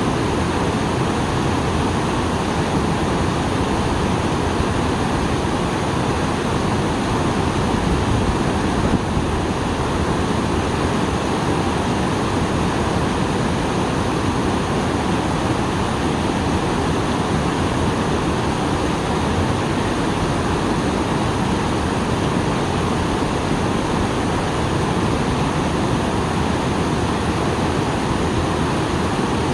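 Water pouring steadily over a small waterfall, swollen after rain, making a loud, even rush.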